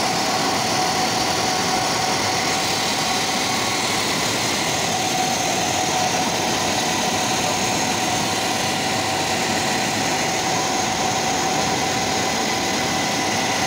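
A grinding wheel running against a cement mill's rotating steel tyre, dressing its surface: a steady, unbroken grinding noise with a constant whine, over the hum of the grinder's electric motor and the mill.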